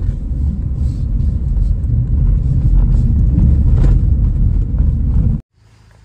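Car cabin noise while driving: a steady low rumble of tyres and engine. About five and a half seconds in it cuts off abruptly to a much quieter steady low hum.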